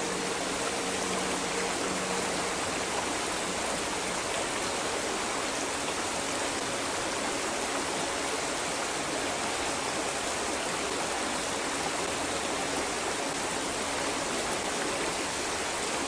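Shallow creek water running steadily over rocks and riffles, an even rushing.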